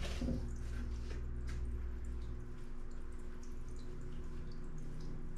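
Running aquarium filter: water trickling and dripping over a steady low hum. There is a brief rustle of clothing being handled at the start.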